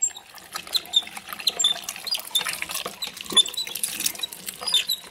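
Hand-cranked metal meat grinder being turned as pork skin is pushed through it, giving a short high squeak that repeats about every two-thirds of a second, with small clicks and crackles in between.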